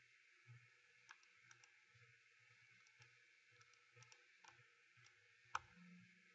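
Near silence with a few faint, sharp computer mouse clicks scattered through, the loudest one about five and a half seconds in.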